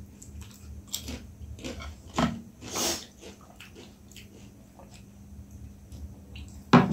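Close-miked eating sounds: chewing and biting, with scattered small clicks and wet smacks, as fried chicken wings and noodles are eaten. A louder, sharp sound comes near the end, about when a chicken wing is bitten into.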